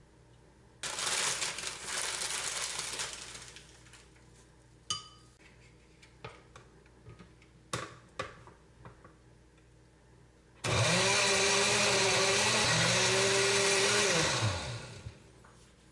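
Countertop electric blender running for about four seconds, blending a drink. Its motor pitch dips once midway and recovers, then winds down as it is switched off. Before it there are a few seconds of hissing noise and a few sharp clicks.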